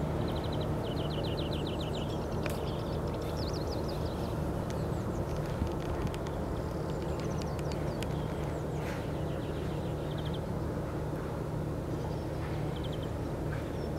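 Steady low drone, with short, very fast high-pitched bird trills that come a few times: near the start, about three seconds in, and near the end.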